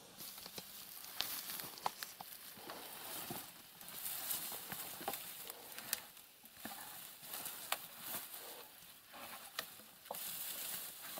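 Dry grass and dead twigs rustling and crackling underfoot and under handling, with scattered sharp snaps and light knocks of wood as old logs and branches are pulled out of the grass.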